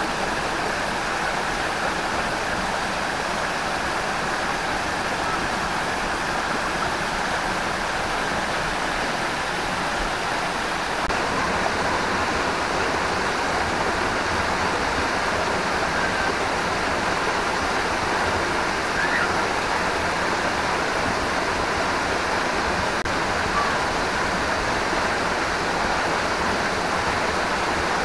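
Waterfall cascading down rock close by: a steady rush of falling water, slightly louder from about eleven seconds in.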